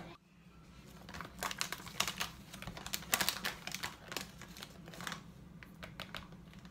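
Plastic bag of coconut flour crinkling and a plastic measuring spoon clicking and tapping as flour is scooped out and tipped into a mixing bowl, an irregular run of small clicks and crackles.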